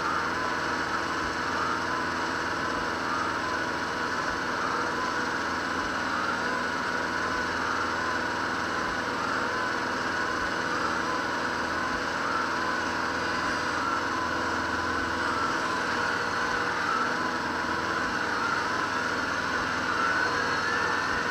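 Kubota Grand L5740 tractor's diesel engine running steadily under work, with a whine that wavers up and down in pitch about once a second.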